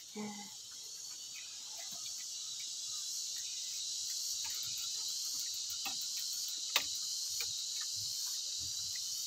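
A steady, high-pitched chorus of insects trilling, with faint scattered ticks of piglets eating grain feed off a concrete floor and one sharp click about two-thirds of the way through.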